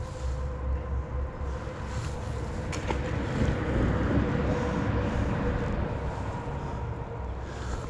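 A steady engine hum that grows louder toward the middle and eases off near the end, over low wind rumble on the microphone.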